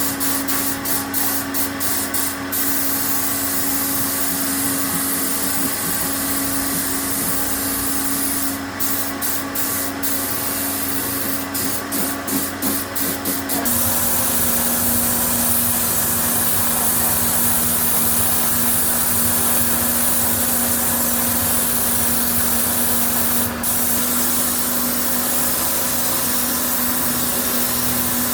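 Compressed-air spray gun hissing, cut into short on-off bursts at first, then spraying steadily from about halfway, over a steady machine hum that drops slightly in pitch at the change.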